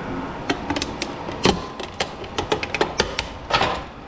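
Irregular sharp metal clicks and knocks from prying and working a big copper transformer loose from inside scrap electrical equipment, the loudest knock about one and a half seconds in.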